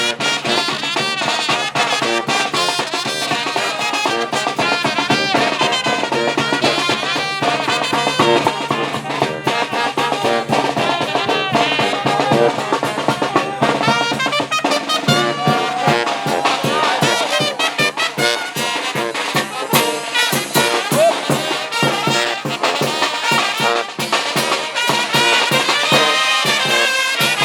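A brass band plays a lively tune, with trumpets and trombones over a steady drum beat.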